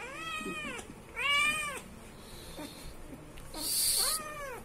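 British shorthair kitten meowing three times in protest, each call rising and falling in pitch, while it is held down for ear drops and an ear massage. A short hissing rush of noise comes just before the last meow.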